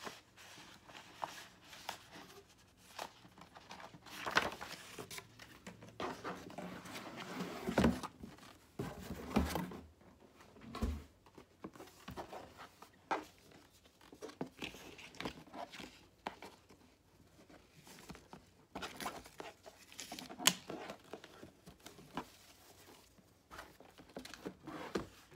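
Paper and cardboard packaging being handled: intermittent rustling, crinkling and scraping as a paper receipt folder and a cardboard gift box are moved about, with a few dull knocks around the middle.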